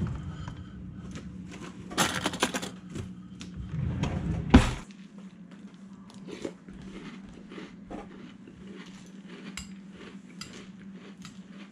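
Metal cutlery rattling in a kitchen drawer as a spoon is taken out, ending in a sharp clatter about four and a half seconds in. Then softer clicks of a metal spoon against a cereal bowl during eating, over a steady low hum.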